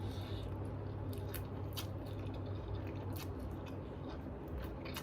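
A person eating: chewing with irregular small wet clicks of lips and mouth, over a faint steady low hum.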